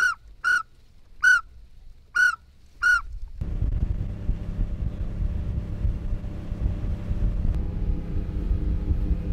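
Five short whistled notes from a hunter's pintail duck whistle, each dipping in pitch at its end. From about three and a half seconds in, a boat motor runs steadily.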